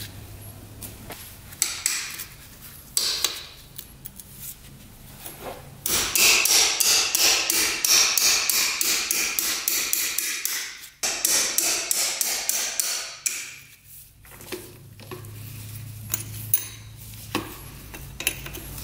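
A hammer tapping on a stuck engine part to free it. A few single knocks come first, then two long runs of fast, rapid strikes about a third of the way in and again just after the middle.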